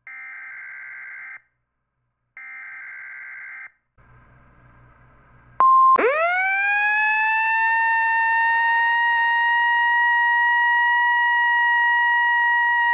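NOAA weather radio receiver playing an alert broadcast through its speaker. First come two short bursts of buzzing digital data tones, the SAME header that encodes the warning. Then a faint hum, and about six seconds in a loud alarm tone that swoops up in pitch and holds steady: the warning alarm tone that comes before a tornado warning.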